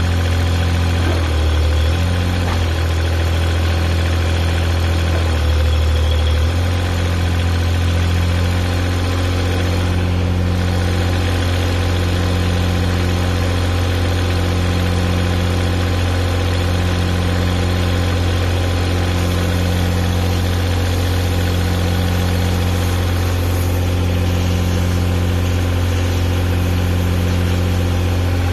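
Engine of a homemade backhoe-excavator running steadily. About a second in, its note changes and wavers for several seconds before it settles back to an even run.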